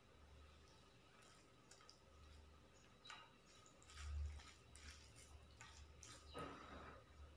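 Faint, scattered soft clicks and wet sounds of fingers mixing rice and chicken curry on a steel plate, over a low hum.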